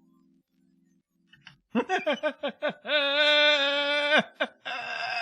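Voicemail recording of a man laughing, played back. After a faint start it comes as quick pulses, about six a second, each falling in pitch, then a long held high squeal of laughter, then a breathy burst.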